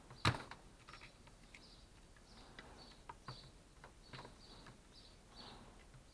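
Small clicks and taps of metal parts being handled at a circular saw motor's carbon-brush holder, with one sharp, louder click about a third of a second in. Birds chirp repeatedly in the background.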